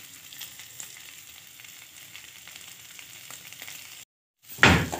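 Cubed potatoes with cumin seeds frying in oil in a steel kadhai over a medium-low flame: a quiet, steady sizzle with faint crackles. Just after four seconds the sound cuts out briefly, then a loud clatter comes in.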